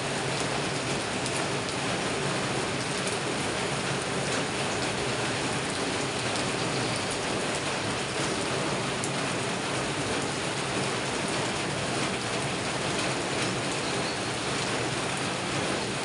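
Steady rain falling on dense garden foliage: an even hiss with a few faint drop ticks.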